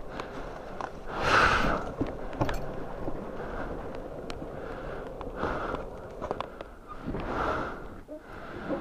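A rider breathing hard inside his helmet: three or four loud, breathy exhales close to the microphone, over a faint low steady rumble.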